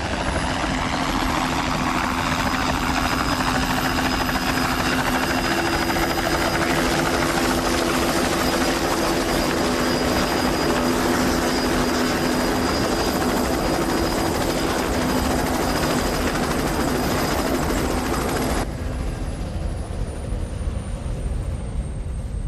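Bell 206 JetRanger turbine helicopter hovering low: a steady rotor beat under a high turbine whine. It cuts off suddenly near the end, leaving a quieter steady hiss.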